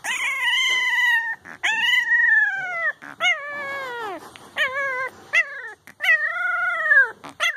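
Young puppy howling: a series of about six high-pitched howls, each about a second long or shorter and falling in pitch at its end, with short breaths between.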